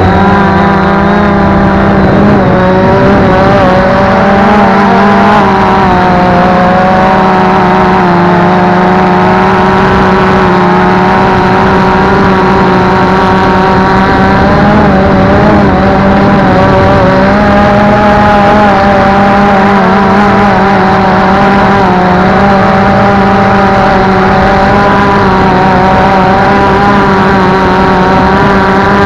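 Multirotor drone's electric motors and propellers running close to the microphone, a loud steady buzz whose pitch wavers up and down as the motors speed up and slow down.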